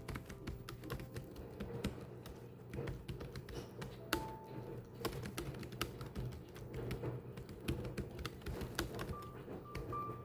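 Typing: keys clicking at an uneven pace, several strokes a second, with soft background music now and then.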